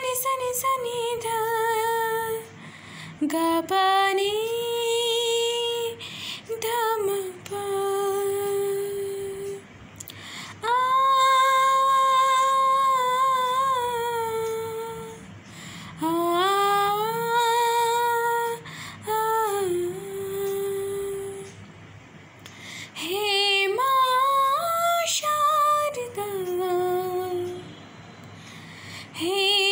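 A single female voice sings a slow Sanskrit devotional hymn to the goddess Saraswati, unaccompanied. Each phrase is a few seconds long, with long drawn-out notes that waver in ornaments and short breaths between phrases.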